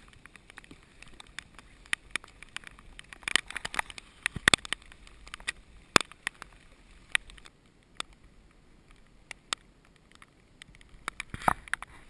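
Hard rain striking close to the microphone: irregular sharp taps, with louder clusters of taps and a low thump about four and a half seconds in.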